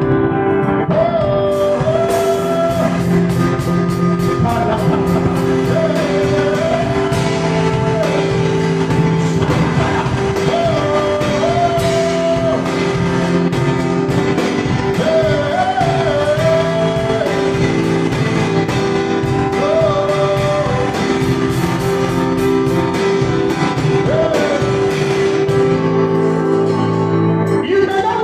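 Worship music: long held keyboard chords under a singing voice, the melody coming in short phrases every few seconds.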